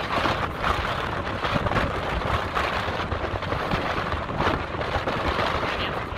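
Wind buffeting the microphone in a continuous rush that rises and falls with the gusts, over the wash of ocean surf breaking on the rocks.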